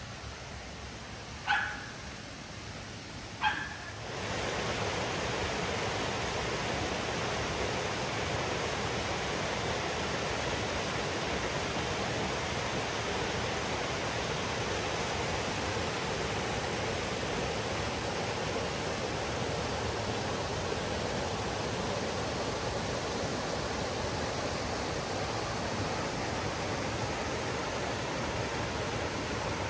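Two short dog barks about two seconds apart, then the steady rush of a small waterfall spilling over rock, from about four seconds in.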